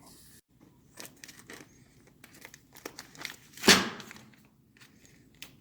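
Crinkling and rustling as clutch plates are wiped off and handled, with scattered light clicks and one louder scuff a little past the middle.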